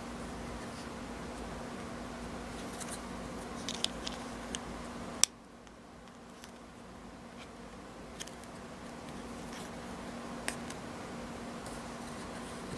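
Small plastic toy pieces being handled, giving a few light clicks and taps over a steady low hum. The loudest sharp click comes about five seconds in, after which the hum drops away for a few seconds before returning.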